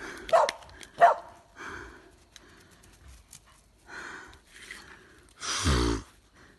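Dog barking twice in the first second, then panting. Near the end comes a loud, short cry that falls in pitch, the loudest sound of the stretch.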